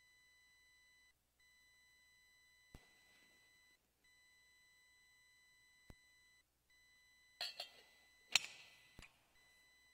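A faint, steady electronic tone that drops out briefly about every two and a half seconds, with a couple of soft clicks. About seven and a half seconds in comes a short cluster of clinks and knocks from altar vessels being handled, the loudest near the end.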